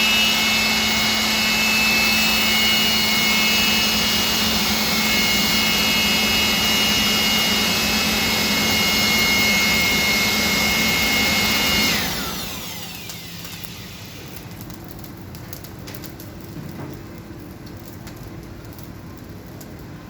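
An electric blower motor running loudly and steadily with a whine. About twelve seconds in it is switched off and spins down, its pitch falling away and leaving a quieter background hum.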